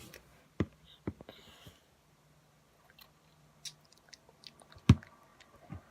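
Mouth sounds of someone eating a jellied orange snack: scattered wet clicks and smacks of chewing and tasting, with the loudest click just before the end.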